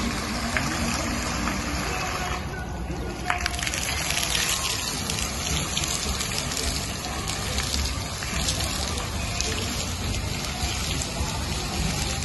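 Fountain water jets spraying up and splashing back down into a shallow pool: a steady rush of water, briefly softer about three seconds in.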